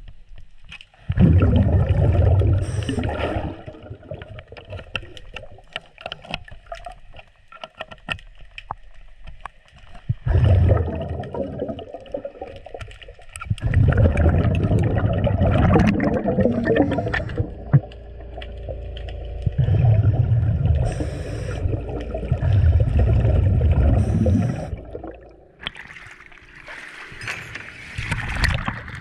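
A diver breathing through a regulator underwater: loud rushes of exhaled bubbles every few seconds, with quieter stretches and frequent small clicks between them. Near the end, water splashing as the diver breaks the surface.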